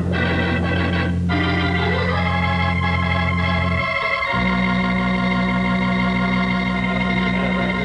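Organ music bridge between scenes: loud held chords, moving to a new chord about four seconds in.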